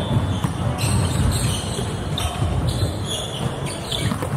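Volleyball rally on a wooden sports-hall court: several short, sharp hits and footfalls scattered through, over a steady low rumble of the large hall.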